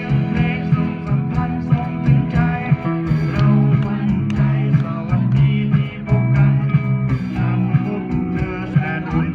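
A rock band playing, with guitar prominent.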